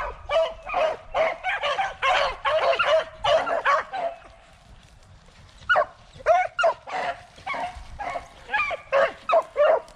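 A pack of beagles baying and yelping in quick, overlapping calls as the hounds run a rabbit. The calls break off for a moment about four seconds in, then start up again.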